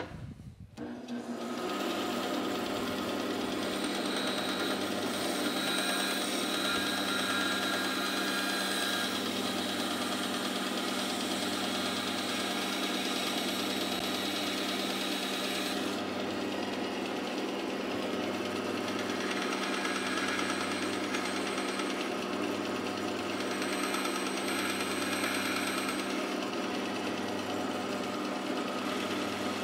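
Bandsaw with a 3/8-inch blade starting up about a second in, then running with a steady hum while the blade cuts a notch into a small wooden block.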